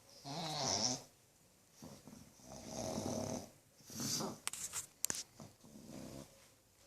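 Pug snoring: about four separate snores, each roughly half a second to a second long, with a few sharp clicks around the middle.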